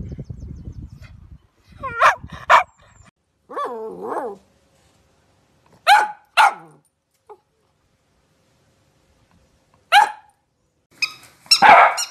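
Cavalier King Charles Spaniels barking: a pair of sharp barks, a brief wavering howl, another pair of barks, then a single bark and a busier run of barking near the end.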